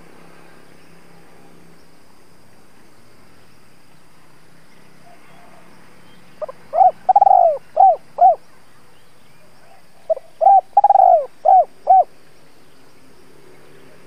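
Spotted dove cooing: two phrases a few seconds apart, each a few short coos around one longer, drawn-out middle note.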